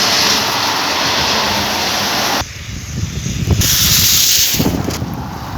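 Heavy rain hissing steadily, cutting off abruptly about two and a half seconds in. It gives way to uneven low rumbling like wind buffeting the microphone, with a brief burst of high hiss.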